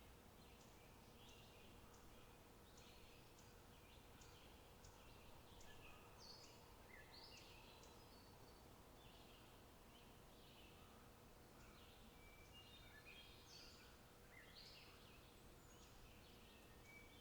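Faint birdsong: many short chirps and twitters from small birds, coming every second or so over a low, steady background hiss.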